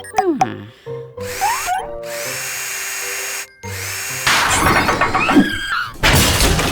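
Cartoon power-tool sound effects, a steady whir and then noisier bursts with sliding pitches, over background music.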